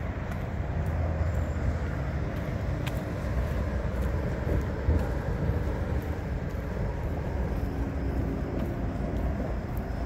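Steady low rumble of distant road traffic.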